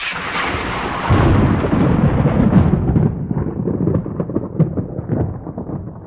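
Thunderclap: a sudden crackling crack, then about a second in a heavy rolling rumble of thunder that slowly dies away, with crackles through it.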